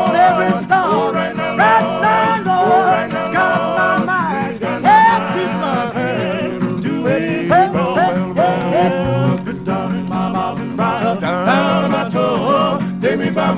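Male gospel quartet singing in harmony on an early gospel record, the lead voice bending and wavering in long drawn-out lines over the other voices' steady low support.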